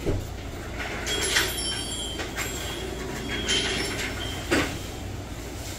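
Steady low background hum with about five short, faint clicks and scrapes of a steel nail instrument working under the edge of a toenail.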